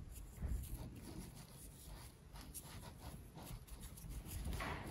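Faint rustling and scratching of yarn being worked with a metal crochet hook, with soft scattered ticks as loops are pulled through the stitches of a small crocheted ring. It is a little louder near the end.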